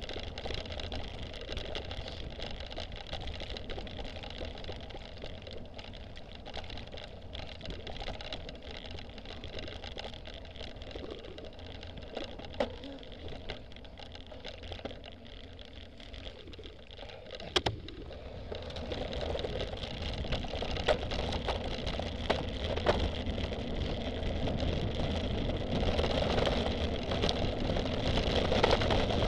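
Cyclocross bike ridden over bumpy grass and mud, heard from an onboard camera: a steady rattle and rumble of the bike and tyres on rough ground. A sharp knock a little past the middle, after which the noise grows louder.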